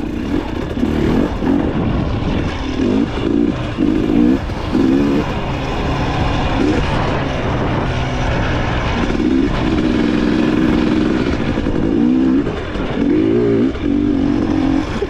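Motorcycle engine revving over and over in short throttle bursts, its pitch rising and falling with each blip.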